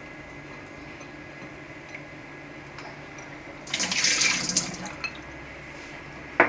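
A brief gush of running water, lasting a little over a second, followed by two sharp knocks near the end.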